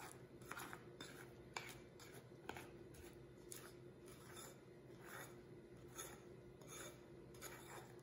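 Spoon stirring thick, hot pecan praline mixture in a glass bowl, with short scraping strokes against the glass about once a second. The mixture is being worked until it thickens enough to drop in spoonfuls.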